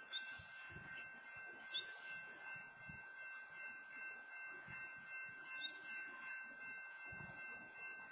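A bird calling three times, near the start, about two seconds in and about six seconds in. Each call is a short high whistle that drops in pitch and holds, over a faint steady electronic whine.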